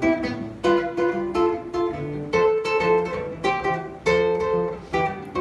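Acoustic guitar strumming a rhythmic chord pattern, with a bass line moving under the chords: the instrumental intro of a song.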